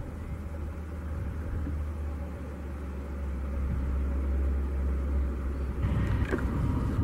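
Steady low drone of a twin-engine propeller plane's engines, building slightly. About six seconds in it gives way to a brighter, rougher engine noise.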